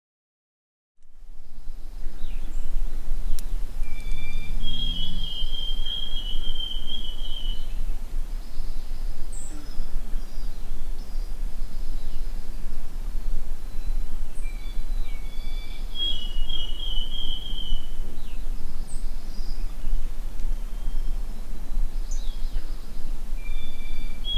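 Forest ambience at dawn, starting after about a second of silence: a songbird sings a level trill of about two seconds three times, each one after a short lower note, with fainter chirps between. A steady low rumble runs underneath.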